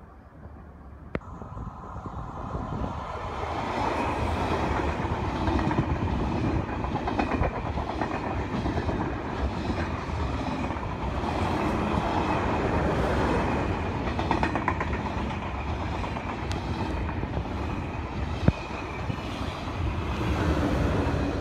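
A TGV Duplex double-deck high-speed train runs through the station without stopping. Its rush builds over the first few seconds, then holds steady as the cars pass close by, with rapid clicking from the wheels over the track.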